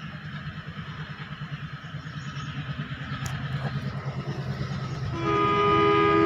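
Alco diesel locomotive approaching: a rhythmic low throb growing louder, then about five seconds in its multi-tone horn sounds, loud and held.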